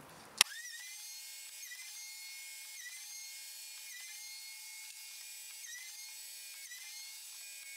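Castle pocket-screw machine switched on with a click and its motor spinning up, then running with a steady high whine that wavers slightly about once a second.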